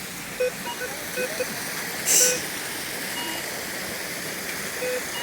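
Steady rushing of a waterfall, with short high beeps dotted through it and a brief louder hiss about two seconds in.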